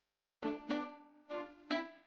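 Background music: four short, bright notes struck in quick succession, each starting sharply and ringing off.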